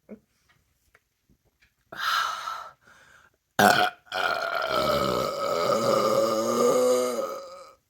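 A woman burping loudly after chugging a beer: a short belch about two seconds in, then a long drawn-out belch of nearly four seconds whose pitch wavers and drops near the end.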